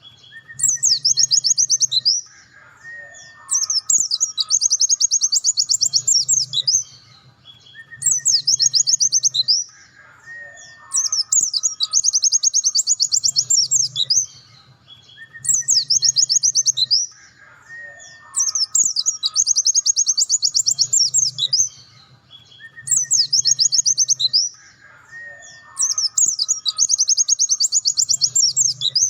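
Pleci dakun (white-eye) singing its fast 'nembak' song: bursts of rapid, high-pitched trilled notes lasting one to three seconds, repeated every few seconds, with a short, lower whistled note between the bursts.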